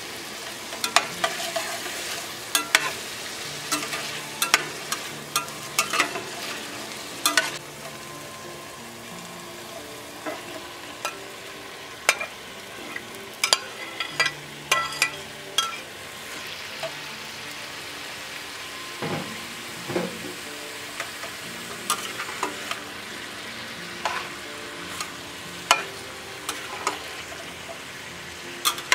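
Chicken frying in a Cuisinart stainless steel sauté pan, a steady sizzle broken by many sharp scrapes and knocks of a plastic spatula stirring against the pan. About halfway through, chopped vegetables are tipped in and stirred through.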